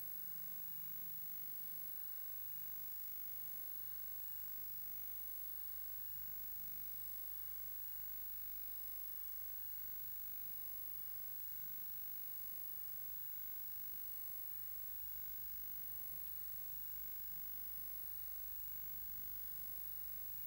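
Steady electrical hum and hiss of the recording equipment, with a constant high-pitched whine and a low rumble underneath; no distinct sound events stand out.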